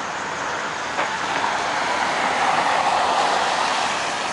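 A car passing on a wet road: tyre hiss on the wet pavement swells and then fades away.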